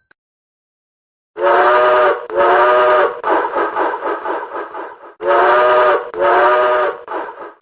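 Steam locomotive whistle sounding two long blasts of several notes at once, then a stretch of rhythmic hissing and chuffing, then two more long blasts.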